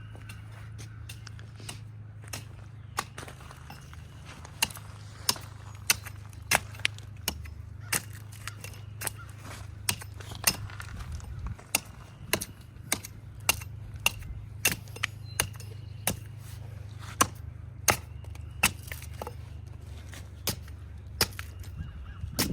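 Repeated sharp chopping strikes into a tree's bark and wood as it is girdled, about one to two blows a second, each a hard crack, over a steady low hum.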